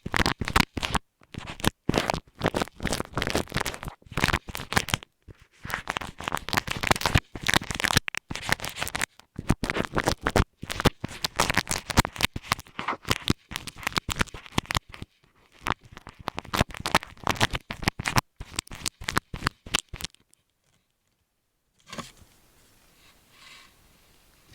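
Close-up scratching and rubbing against an earphone microphone, in quick irregular strokes with short pauses. It stops about twenty seconds in, leaving only faint room tone.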